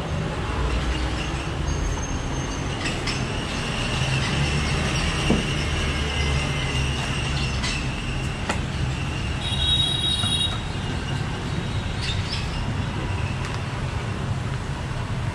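Steady low mechanical rumble with a thin, drawn-out high squeal from about four to nine seconds in and a short shrill squeal about ten seconds in, plus a few sharp clicks.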